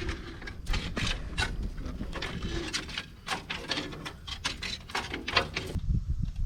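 Irregular clicks and light knocks, several a second, over a low rumble; they thin out near the end.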